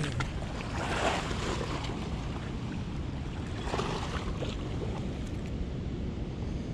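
Steady rush of river water flowing below a dam, with wind buffeting the microphone. A couple of faint, brief scuffs stand out, about a second and about four seconds in.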